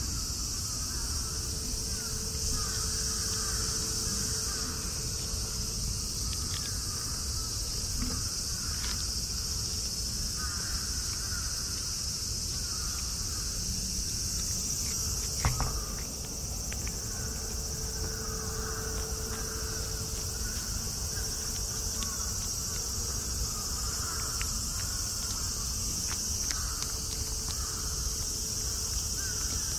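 Steady, high-pitched insect chorus, with a single sharp click about halfway through.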